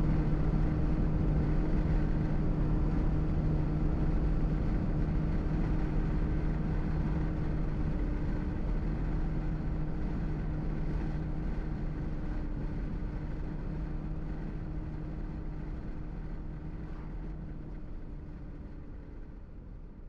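A car's engine and road noise while driving, a steady drone with a low hum, fading out gradually over the last several seconds.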